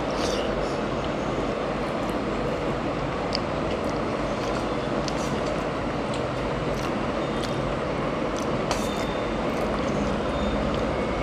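Electric fan running with a steady rushing noise, over scattered small clicks and smacks of eating by hand: fingers mixing rice on a plate and chewing.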